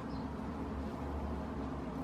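Steady low hum and hiss of background room noise, with no distinct sound event.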